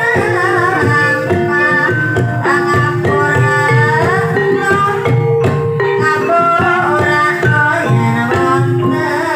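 Javanese gamelan music accompanying an ebeg dance. Hand-played kendang drums keep a busy rhythm under sustained metallophone notes, and a wavering melody line sings above them.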